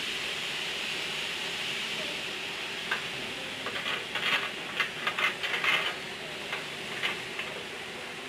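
A steady machine hum with hiss, and from about three seconds in a run of irregular light clicks and taps, thickest for about three seconds, then a few scattered ones.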